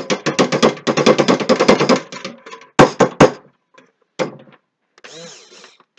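Stick blender in a stainless steel pot of cold-process soap batter, with a rapid rattling clatter for about two seconds, then three sharp knocks in quick succession.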